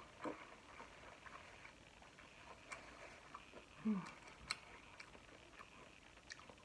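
Faint, close-up chewing and wet mouth clicks from eating corn on the cob, scattered irregularly. A short, low hum falling in pitch comes just before four seconds in.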